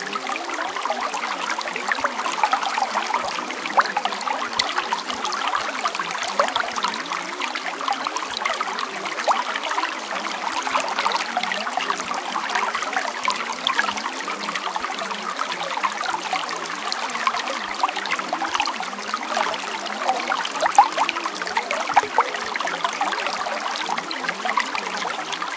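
Steady trickling, babbling water with many small splashes, thin and without any deep rumble.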